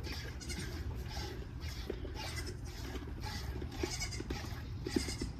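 Hand-milking a goat: streams of milk squirting into a pail in a steady rhythm, about two hissing squirts a second.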